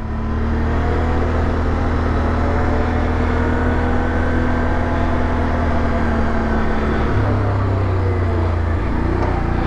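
Can-Am Outlander ATV engine running steadily as it rides along, with a dense rush of ride noise underneath; the engine note dips slightly near the end.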